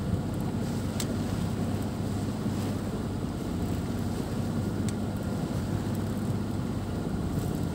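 Wind buffeting the microphone and water rushing along the hull of a sailboat under way: a steady low rush, with a couple of faint ticks.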